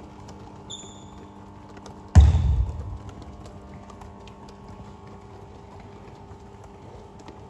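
Basketball passing drill in a sports hall: faint scattered slaps of basketballs being caught and thrown, and a short high squeak about a second in. Just after two seconds comes one loud, deep thump that rings out briefly in the hall.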